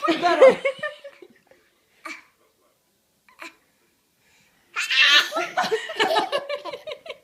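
Laughter in two bouts: a short burst of voice and laughing in the first second, a quiet gap, then a longer stretch of laughing from a little before the end.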